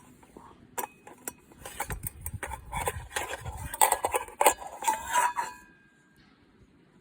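Clinking and clattering of metal objects being handled, a dense run of knocks with short ringing tones that stops about two-thirds of the way in.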